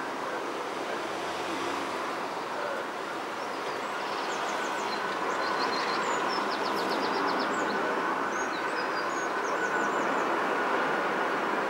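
Jet engines of an Aer Lingus Airbus A330 on final approach with gear down: a steady rushing jet noise with a faint hum in it, slowly growing louder as the airliner nears. Small birds chirp in quick series through the middle.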